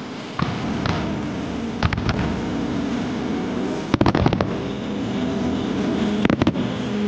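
Aerial firework shells bursting: single bangs about half a second and a second in, two more around two seconds, then a rapid cluster of bangs about four seconds in and another shortly before the end.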